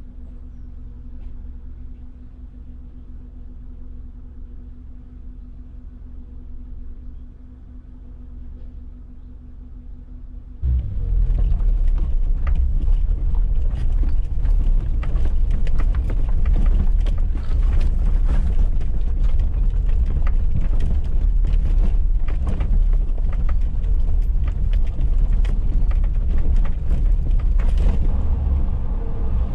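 A Suzuki Jimny 4x4 driving on a rough, unsurfaced lane. At first there is a steady, moderate engine drone. About ten seconds in it turns abruptly much louder: a heavy rumble with a constant clatter of knocks and rattles from the rough surface.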